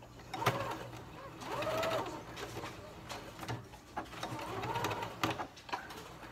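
Electric domestic sewing machine stitching through nylon webbing in short runs while backstitching, its motor whine rising and falling as it speeds up and slows down, with sharp clicks between the runs.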